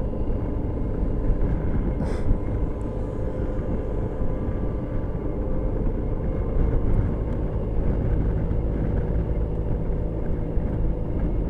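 Suzuki Burgman scooter cruising at a steady speed: a steady engine drone with wind and road rush, picked up by a camera mounted on the moving scooter. There is a single sharp click about two seconds in.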